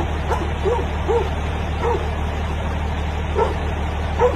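Dog barking and yelping in short, sharp calls, about six of them with a pause in the middle, as it is attacked by a mountain lion. A steady low hum runs underneath.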